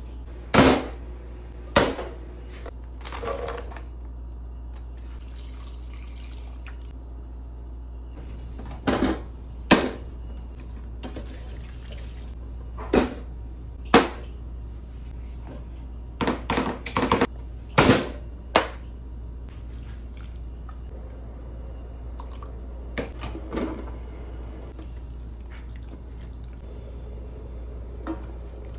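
Kitchen handling sounds: bowls, a saucepan and utensils set down and knocked on a stainless steel counter, about a dozen sharp clacks in scattered clusters, with some liquid pouring, over a steady low hum.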